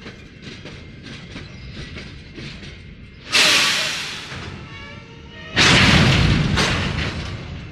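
Empty coal train's cars clanking in a quick series, then two sudden loud bursts, each fading over a second or two, as the train dumps its air and slams to a stop in an emergency brake application.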